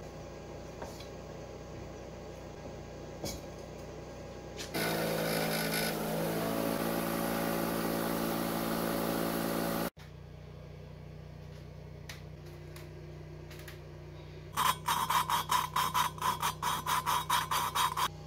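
A valve being hand-lapped into the 1989 Yamaha XT350's cylinder head with a suction-cup lapping stick and grinding compound: a rhythmic gritty scraping of about four strokes a second, starting about three-quarters of the way through. Before it, a loud steady machine hum with a pitch runs for about five seconds and stops abruptly.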